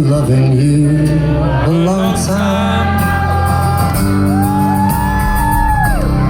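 Live band playing the slow instrumental opening of a ballad, with melodic notes that bend and hold; about four seconds in, a long note slides up, holds, and falls away near the end.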